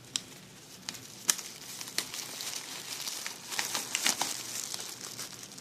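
Packaging being crinkled and crackled by hand while a shipping package is unwrapped, with scattered sharp crackles and rustles.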